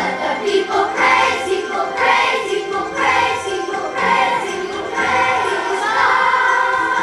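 Music: voices singing together over instrumental backing with a jingling percussion, in phrases about a second long.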